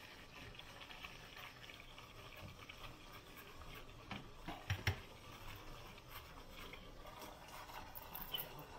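Water boiling in an open steamer pot, a faint steady bubbling. A few metal clinks and knocks come about four to five seconds in as the plated fish is set down on the stainless steel steamer basket.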